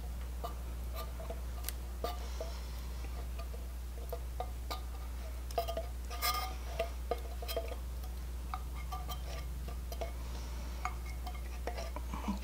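A silicone spatula scraping condensed soup out of a tin can into a ceramic slow-cooker crock: scattered light scrapes and clicks, busiest around the middle, over a steady low hum.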